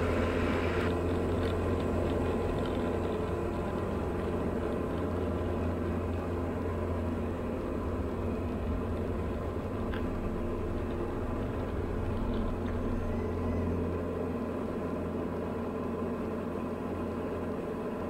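Diamond DA40's four-cylinder Lycoming engine and propeller running steadily at takeoff power through the takeoff roll and liftoff, heard inside the cabin as an even low drone.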